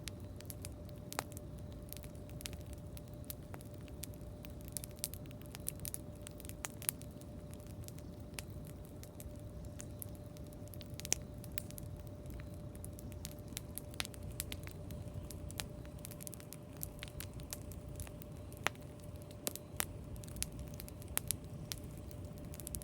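Wood campfire crackling, with irregular sharp pops scattered through it over a low rumble. A faint steady hum runs underneath.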